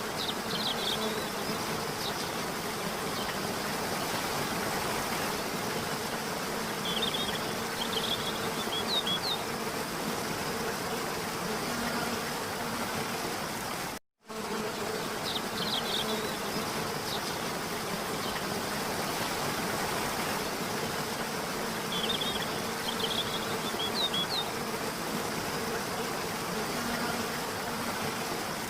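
Looped waterfall ambience: steady rushing water with a faint steady hum underneath and small clusters of brief high chirps now and then. The sound drops out for a split second about halfway through, where the loop restarts.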